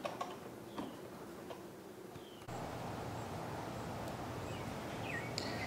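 Quiet room tone with a few faint ticks, then, about two and a half seconds in, a steady outdoor background hiss with a few faint bird chirps near the end.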